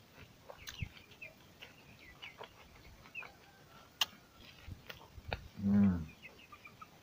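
Close-up eating sounds of a man biting and chewing pork and rice eaten by hand, with a couple of sharp clicks. Faint bird chirps run underneath, and a short low pitched sound comes near the end and is the loudest thing.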